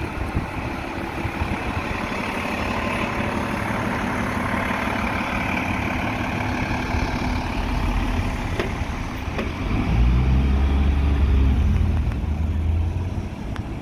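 Diesel bus engines running as an Alexander Dennis Enviro400 double-decker drives off past the camera, among general street traffic. A louder, deeper engine rumble comes about ten seconds in and drops away a couple of seconds before the end.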